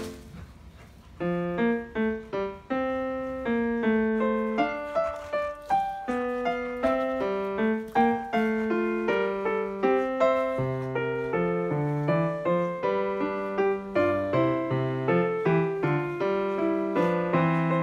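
Background piano music: a steady run of single notes and chords, resuming after a short pause about a second in.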